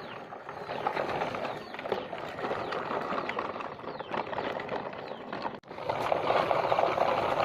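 Truck engine running, a rough steady clatter with no horn. It breaks off for a moment about five and a half seconds in and comes back louder.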